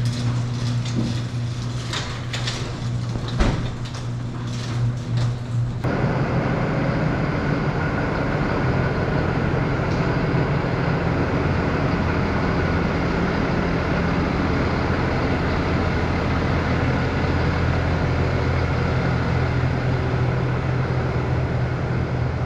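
Heavy farm vehicle engine running steadily, with a few knocks and rattles in the first few seconds, one sharp knock about three seconds in, and a sudden change to a fuller, steadier engine noise about six seconds in.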